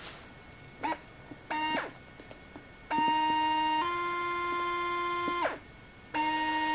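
Jordan 11 Adapt's self-lacing motor whining as it drives the laces. There are two brief chirps, then a steady whine about three seconds in that steps up in pitch and winds down with a falling glide, and a second whine starts near the end.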